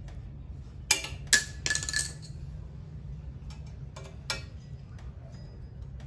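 Sharp metallic clinks of a steel hand tool knocking against the handlebar and stem fittings: a quick cluster of three or four with a brief ring in the first two seconds, then two lighter clicks about four seconds in, over a steady low hum.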